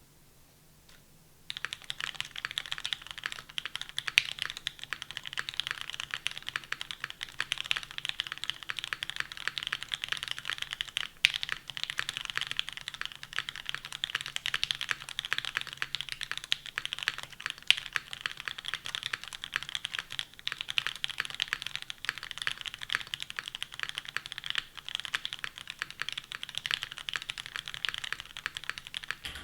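Custom mechanical keyboard with a Perry IU V2 case, carbon fiber plate, OP Black switches lubed with 205g0, and GMK keycaps, typed on continuously and quickly. Typing starts about a second and a half in, with a few louder single strokes among the run of keystrokes.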